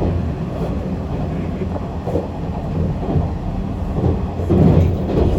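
Zipangu Hiraizumi train running at speed: a steady low rumble of wheels on rail, with a louder patch about four and a half seconds in.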